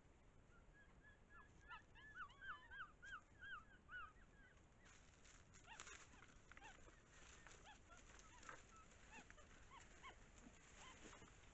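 Faint animal calls: a quick run of short, arched calls, about four a second for three seconds, followed by scattered single calls and light rustling.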